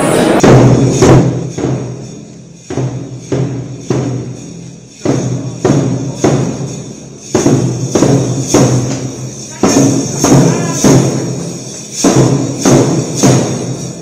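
Drum band playing, a bass drum with other percussion, beating out a repeating pattern of three strikes about every two seconds.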